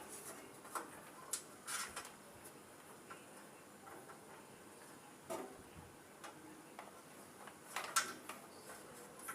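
A few irregular light clicks and taps of hands handling cables, terminals and tools during hand wiring of battery and inverter connections, the loudest about eight seconds in.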